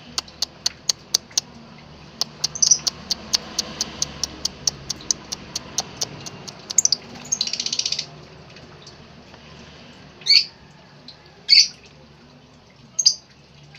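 Lovebird chirping: a quick run of sharp, high, clicking chirps for about seven seconds and a short buzzy trill, then three loud shrill calls a little over a second apart near the end.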